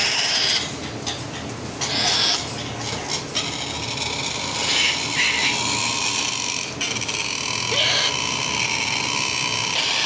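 Triton cockatoo chicks giving harsh, rasping begging calls: four short hoarse bursts spread a couple of seconds apart, over a steady background hiss.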